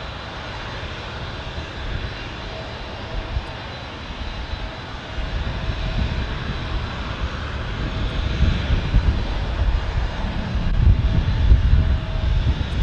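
Jet airliner engines on takeoff: a steady rushing roar whose low rumble builds louder from about halfway through.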